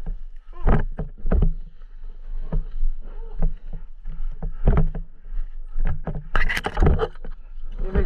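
Dirt bike engine running on a rough track, heard from a camera on the bike or rider, with many irregular loud thumps and knocks as it rides over bumps.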